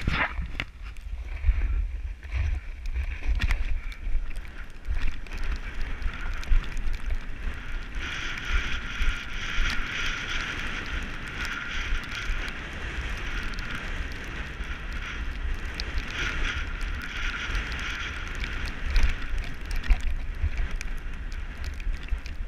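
Wind buffeting the microphone of a camera moving fast down a ski slope, a steady low rumble with gusty peaks. Over the middle of the stretch it is joined by a louder hiss of edges sliding across snow, which fades again near the end.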